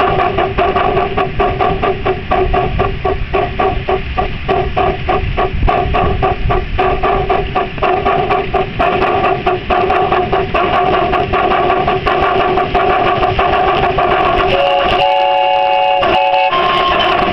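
Miniature steam locomotive running along the track, heard from the seat just behind it: rapid, regular exhaust chuffs over a steady rumble of wheels on rail, with a steady hum underneath. Its whistle blows for about two seconds near the end.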